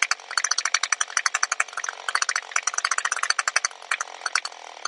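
Two-stroke engine of an Echo SRM string trimmer idling low with uneven, irregular firing. The idle speed screw has been backed off too far, and the idle is set too low to keep the engine running.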